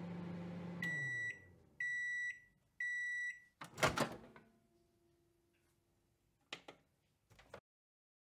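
Microwave oven sound effects: the running hum winds down, the timer beeps three times, about a second apart, then comes a loud clunk of the door latch and a few quieter clicks.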